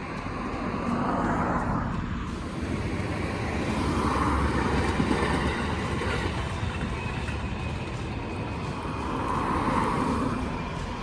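Road traffic: vehicles passing one after another, each swelling and fading, over a steady background rumble.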